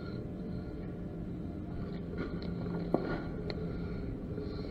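Steady low background rumble with faint scuffs and rustles, and one sharp click about three seconds in.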